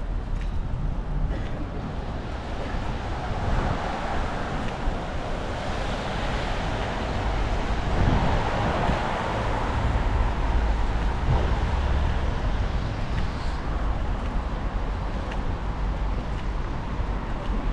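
Street traffic on wet roads: a vehicle passes with tyre hiss that swells and fades over several seconds, over a steady low rumble of traffic.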